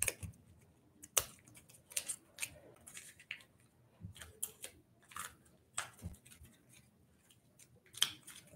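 Folded paper dollar bills crinkling and crackling as they are fanned out by hand, a faint, irregular scatter of short crackles.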